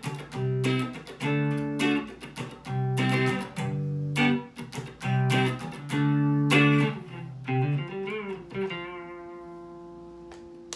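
Mexican-made Fender Stratocaster electric guitar with Lace Sensor pickups played clean on its neck pickup: a run of strummed chords, then a last chord left ringing and slowly fading out over the final two seconds.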